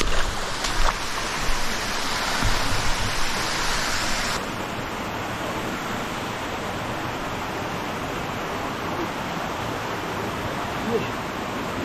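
Mountain stream water rushing over rocks as a steady noise, with a few low thumps in the first seconds. About four seconds in it cuts abruptly to a duller, quieter rush.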